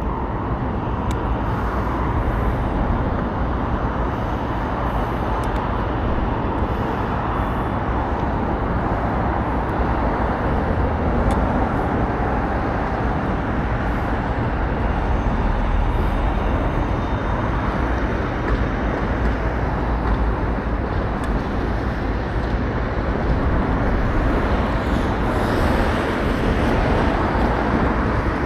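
Steady road traffic noise, a continuous rumble and hiss of passing vehicles with heavy low-end rumble.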